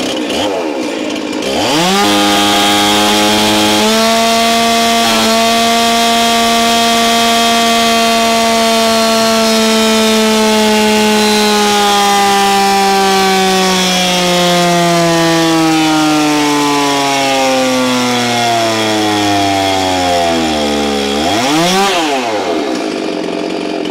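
Stihl MS361 two-stroke chainsaw, with a new piston and lower transfer porting, on a chainsaw dyno pull. It revs up to wide-open throttle about a second and a half in and screams at around 12,500 rpm. From about ten seconds in its pitch falls slowly and steadily as the dyno load drags the revs down. Near the end there is a quick blip up and back down.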